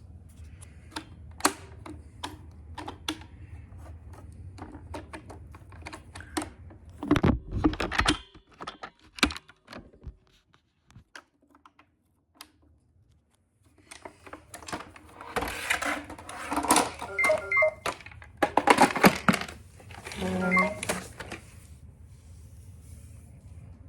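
Robot vacuum running into LEGO bricks: irregular plastic clicks and rattles over a low motor hum. The hum stops about eight seconds in, and after a few nearly quiet seconds a louder rattling clatter returns.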